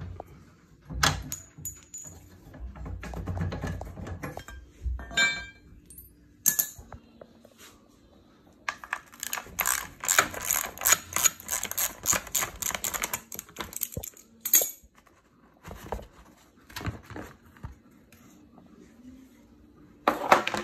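Hand tools working on a pit bike's frame bolts: scattered metallic clinks and taps, then a run of quick clicks lasting several seconds in the middle, as a socket wrench is worked on a bolt.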